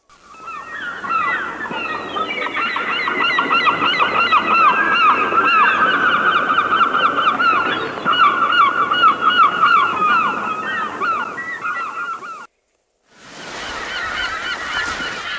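A flock of birds calling all at once, a dense chorus of rapid, repeated short calls. It cuts off abruptly about twelve seconds in, and after a brief silence a similar chorus resumes.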